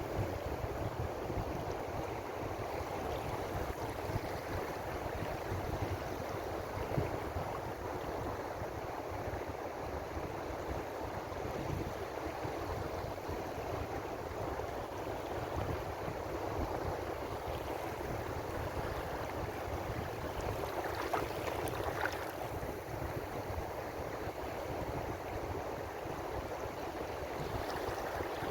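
Ocean surf washing on the shore: a steady, even rush of waves without distinct breaks.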